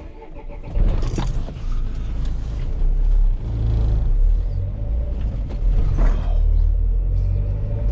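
An old van's engine running as the van drives, a steady low rumble heard from inside the cab that swells about a second in, with a faint steady whine that the driver puts down to the alternator.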